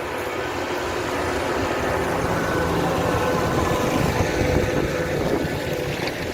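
New Holland T7.210 tractor's six-cylinder diesel engine running steadily under load, pulling a plough through the ground.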